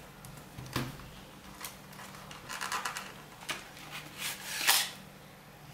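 Cardboard game box being handled: the box's cardboard insert and panels rub and scrape, with several light clicks and taps, the loudest scrape a little before the end.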